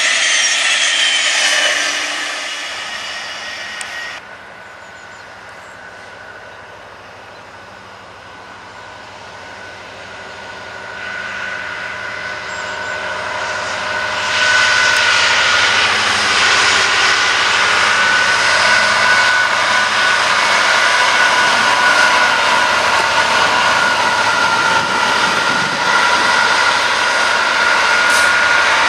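An electric express passenger train passes and fades away in the first few seconds. A Freightliner Class 66 diesel locomotive with its two-stroke V12 engine, hauling container wagons, then approaches, growing louder, and from about halfway the freight train passes loud and steady with a steady high whine.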